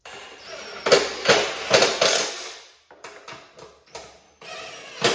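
Cordless impact driver running in two bursts on a mower blade spindle's nut, a dense hammering rattle with a few clicks in the pause between bursts.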